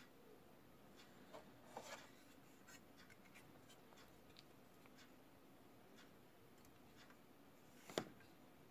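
Near silence broken by faint handling of a 1:200 plastic model airliner and its display stand: light rubbing and a few small clicks, with one sharper plastic click near the end.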